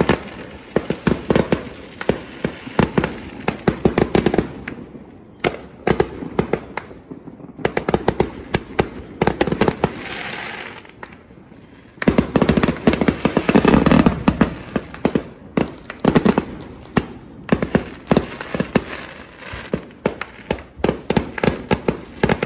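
Aerial fireworks going off: a fast, irregular string of sharp bangs and crackles, with a hissing stretch around ten seconds in and a louder, denser barrage from about twelve seconds.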